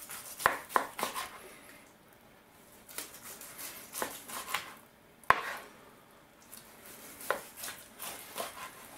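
Knife slicing a grilled steak on a plastic cutting board: irregular cutting strokes, with the blade knocking and scraping on the board, the sharpest knock about five seconds in.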